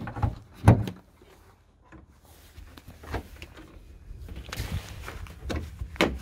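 Knocks and clicks of hard plastic parts being handled and pressed into place under a car's front hood, with a brief scraping rustle past the middle.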